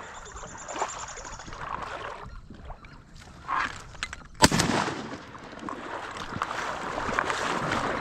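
A single shotgun shot about four and a half seconds in, sharp and loud with a ringing tail: the shot that fills the hunters' limit of drake ducks. Water sloshes quietly around it.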